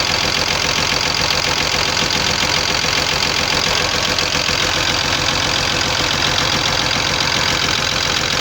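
Cummins diesel engine idling steadily, with the knock that the owner traced to broken bronze connecting-rod small-end bushings.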